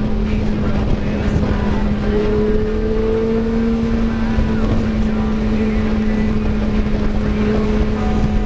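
Motorcycle engine running steadily at cruising speed, heard from the bike itself as one steady drone, with a weaker higher tone rising slightly about two to four seconds in. Wind and road noise rumble underneath.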